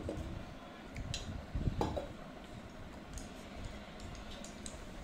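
A few faint, short clicks and light knocks, the clearest about one and two seconds in, over low room noise.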